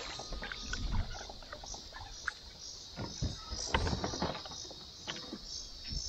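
Knocks, bumps and clicks on a plastic fishing kayak as an angler hooks and fights a bass right beside the boat, loudest about halfway through. A steady, high-pitched chirping goes on in the background.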